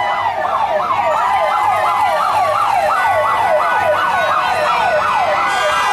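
Vehicle siren in a fast yelp, its pitch sweeping up and down about three times a second, with a steady tone held underneath.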